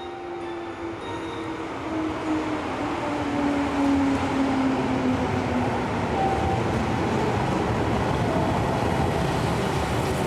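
Interior running noise of a JR Shikoku 2000 series diesel railcar on the move. A steady rumble grows louder over the first few seconds and then holds, while a tone glides down in pitch through the first half.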